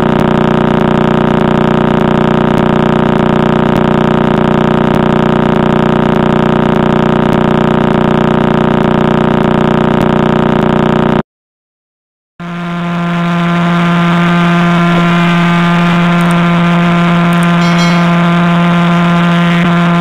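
Radio pulses of the Crab Pulsar (PSR B0531+21) converted to sound: a steady rapid buzz at 30 pulses a second. It cuts off about 11 seconds in, and after a second of silence the pulses of the millisecond pulsar PSR J0437-4715, 174 a second, come in as a steady tone.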